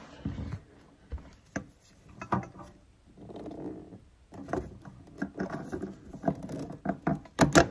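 Plastic Speedfit push-fit coupling and tap connector being worked loose and pulled apart by hand: irregular clicks and knocks of plastic and metal fittings, with some rustling, the sharpest clicks near the end.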